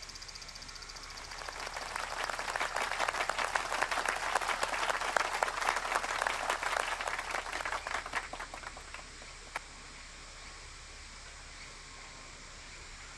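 Twigs and kindling crackling and popping as the fire catches in a small wood-burning camp stove. The crackle builds over a couple of seconds, runs dense for several seconds, then dies down, with one last sharp pop.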